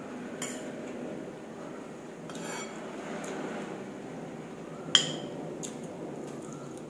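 Metal spoon clinking against a ceramic soup bowl while scooping broth and noodles: a few light clicks, and one sharp clink with a short ring about five seconds in.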